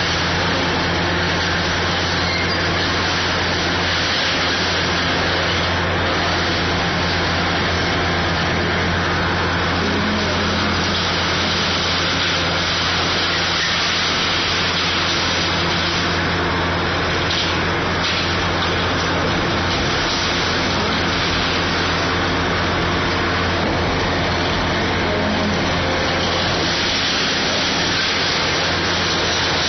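Kobelco SK500 hydraulic excavator's diesel engine running steadily with a constant low hum and hiss, without clear impacts.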